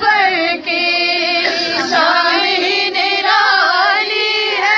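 Women singing a manqabat, a devotional song in praise of Fatima, with long, wavering melodic lines and no spoken words.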